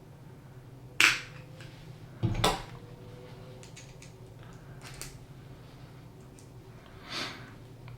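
Small metal transmission parts being handled and fitted by hand: a few sharp clicks and taps as a gear and E-clip go onto an RC crawler transmission shaft, the loudest about a second in and another with a dull knock just after two seconds.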